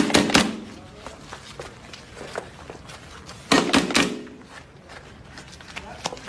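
Two short bursts of sharp hits, one at the start and one about three and a half seconds in, each with a brief low pitched tone under it; faint and quiet in between.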